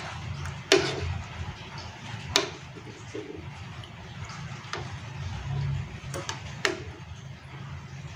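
A utensil stirring chunks of beef lung in broth in a non-stick pan, knocking against the pan with about half a dozen sharp clicks, the loudest about a second and two and a half seconds in. A low steady hum runs underneath.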